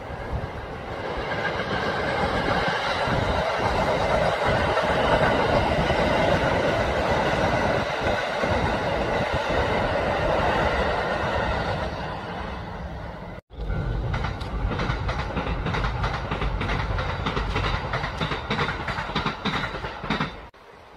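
Kintetsu electric commuter trains passing, the steel wheels rumbling on the rails and clicking over the rail joints. About two-thirds of the way in, the sound cuts to another passing train with a quick run of joint clicks.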